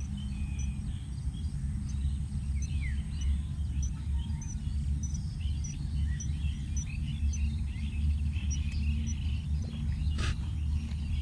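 Wind rumbling on the microphone, with many birds chirping and calling over it and a thin high note repeating about twice a second. A single sharp click comes about ten seconds in.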